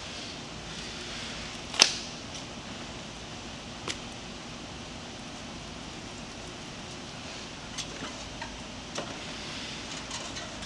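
Handling knocks and bumps as small rubber-tyred wheels are lifted out of the machine's frame and set down on a concrete floor. The sharpest knock comes about two seconds in, with lighter taps later, over a steady low background noise.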